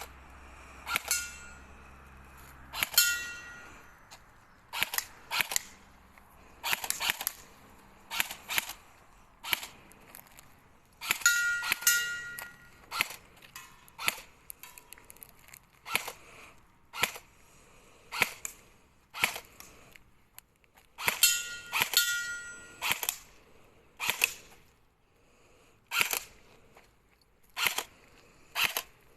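M4A1-style BB gun firing single shots, sharp cracks coming irregularly about once a second, some in quick pairs. Several shots are followed by a short ringing tone.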